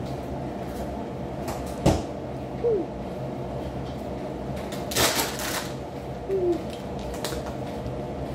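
Eating noises: a few light clicks of chopsticks against a ceramic bowl and a short noisy rush about halfway through, over a steady low hum.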